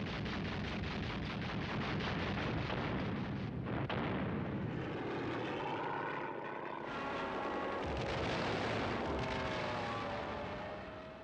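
Aircraft engines running, with a rapid rattle like machine-gun fire in the first few seconds. Then the engine pitch slides up and down, and the sound fades near the end.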